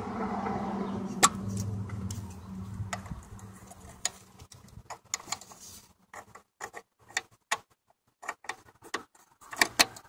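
Plastic wiring-harness connectors under the dashboard clicking and rattling as fingers handle them and plug them back in: a sharp click about a second in, then a run of irregular short clicks and ticks. A low steady hum fades out in the first few seconds.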